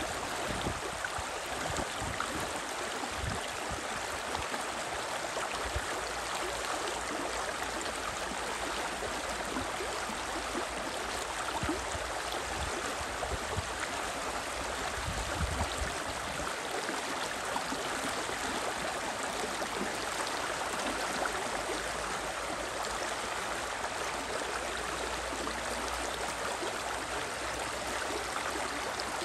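The Spree river's water rushing steadily.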